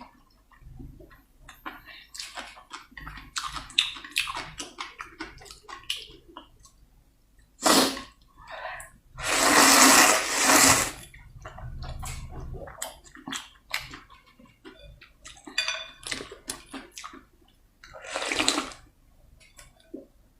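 Close-miked eating sounds: noodle soup slurped in several long, wet slurps, the loudest near the middle, between runs of quick chewing and lip-smacking clicks.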